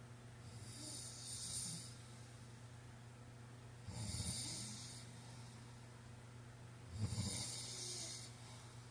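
A man snoring in his sleep: three snores about three seconds apart. The first is softer and mostly a breathy hiss; the second and third are louder, with a low flutter under the hiss.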